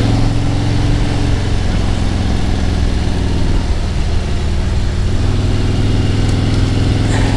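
Motorcycle engine running at a steady cruise under a rush of road noise, its low hum holding an even pitch.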